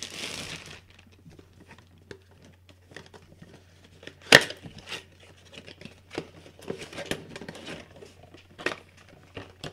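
Clear plastic action-figure packaging being handled and pulled apart: crinkling plastic, then scattered clicks and crackles, with one sharp snap about four seconds in.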